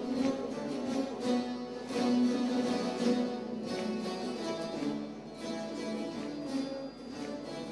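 Large ensemble of bağlamas (long-necked Turkish saz lutes) playing a folk tune together, many strings plucked at once.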